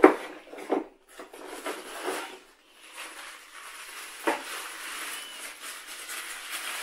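Packaging and parts being handled as a CPU water cooler is pulled out of its box: a sharp knock at the start, a few softer knocks, and rustling.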